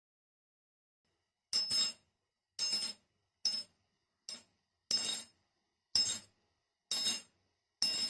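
Repeated clinking strikes of a hard object, about one a second starting a second and a half in, each with a brief high ring.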